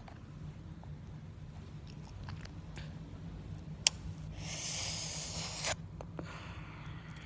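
Mouth noises close to a phone microphone: a sharp click about four seconds in, then a breathy blow or hiss into the microphone lasting over a second, over a low steady hum.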